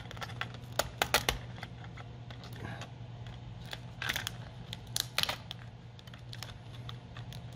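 Light clicks and taps of fingers handling an opened laptop's internal parts and ribbon cables, in small scattered clusters about a second in and again around four to five seconds in, over a steady low hum.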